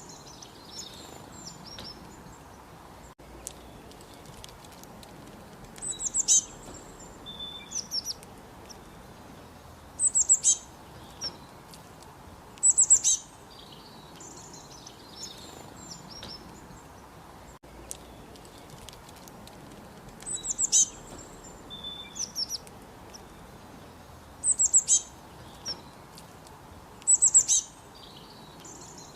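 A songbird repeats a short, high song phrase every few seconds: a quick run of notes dropping in pitch, with softer chirps between phrases. A steady low hiss runs underneath.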